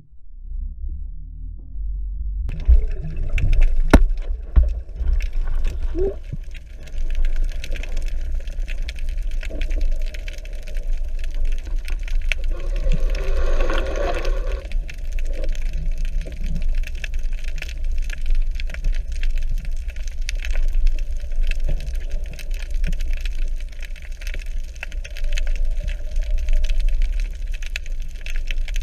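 Underwater sound picked up by a camera in its waterproof housing: a steady low rumble of water moving against the housing, with scattered sharp clicks and knocks.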